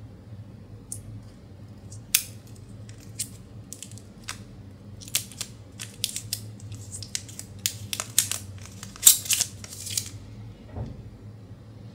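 Crinkly protective wrap being peeled off a new stylus: a run of sharp, irregular crackles that comes thickest near the end.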